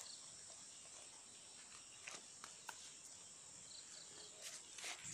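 Faint, steady, high-pitched insect chirring, with a few soft rustles and steps in grass.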